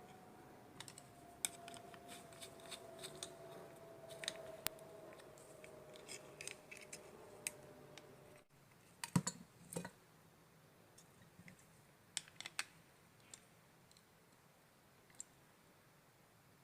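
Faint scattered clicks and light taps of small parts being handled while the carbon rod from a pencil battery is fitted into the holder of a homemade soldering-iron welder. Under the first half runs a faint steady hum that slowly sinks in pitch and cuts off about eight seconds in.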